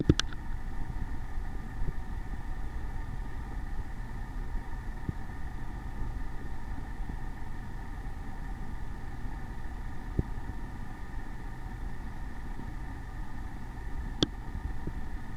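Steady low rumble with a constant hum from a running motor, and one sharp click about a second before the end.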